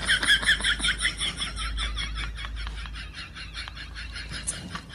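Birds chirping: a rapid run of short, high chirps, several a second, growing fainter over the second half.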